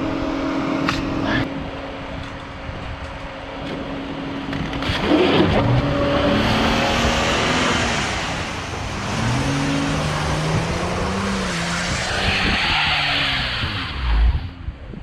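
Vehicle wheels spinning in snow while the engine revs up and down, with a rising and falling whine over a hiss of slipping tyres: the stuck vehicle is trying to drive out. A thump comes near the end.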